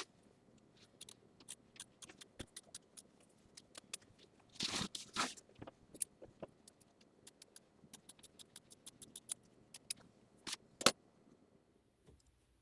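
Scissors snipping fabric in quick, irregular clicks while excess appliqué background fabric is trimmed close to the tack-down stitching. Brief rustling of the fabric about five seconds in, and a louder snip near the end.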